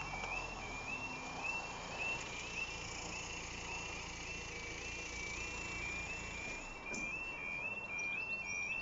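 Level crossing audible warning (yodel alarm) sounding: a high two-note electronic tone stepping up and down in a steady repeating cycle, signalling that the barriers are lowering for an approaching train.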